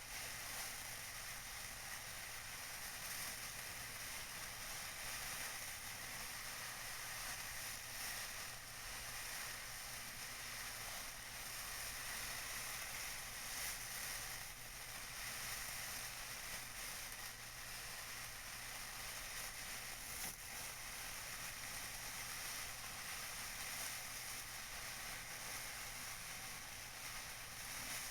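Tissue paper being crinkled and rustled by hand: a continuous crackling rustle with small uneven swells.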